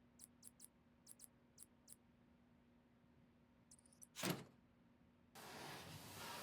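Handling noises during a PC assembly: several faint light clicks, a sharp knock a little after four seconds, then steady rustling from about five seconds in.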